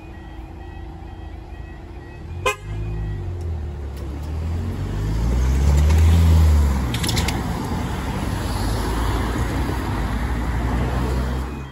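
Cars driving off over the level crossing once the barriers have risen, their engines and tyres passing close by, loudest about six seconds in, with a sharp knock a couple of seconds in.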